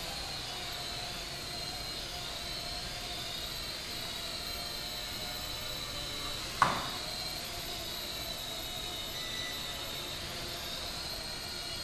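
Small toy quadcopter's electric motors and propellers whining steadily, the pitch wavering up and down as the throttle changes. A single sharp knock about halfway through.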